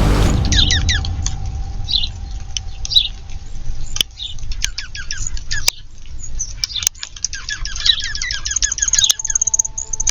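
Small backyard birds chirping and calling in quick runs of short, falling chirps, with a few sharp clicks in between. Music cuts off at the very start, and steady musical tones come back in near the end.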